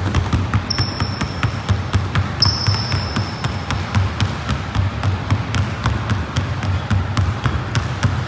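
Two basketballs pounded on a hardwood gym floor in a two-ball dribbling drill, a steady run of hard bounces about four a second. Twice near the start a high thin tone sounds for about a second over the bounces.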